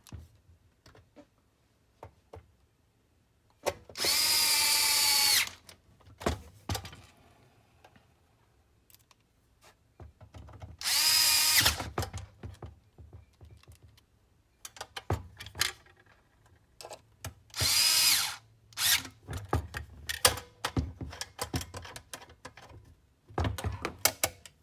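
Cordless power screwdriver driving in cover screws, in four short runs of about one to one and a half seconds each, the last one shortest. Small clicks and knocks of handling come between the runs.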